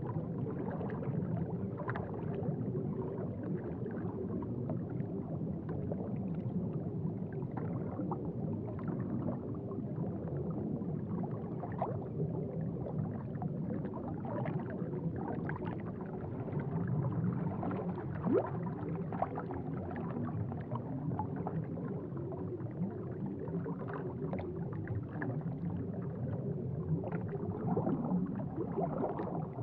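Aquarium water bubbling and gurgling over a steady low rumble, with small bubble pops scattered throughout.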